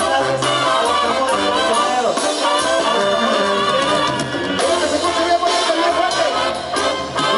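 Banda sinaloense playing live: male vocals sung over trumpets and other brass, a bass line of held low notes, and drums with cymbals.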